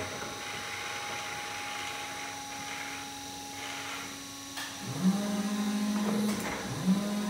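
Clark EM-15 electric forklift working: a steady hum with a light hiss as the raised forks come down, then twice a sharp clunk and an electric motor whining up to a steady pitch, about five and seven seconds in.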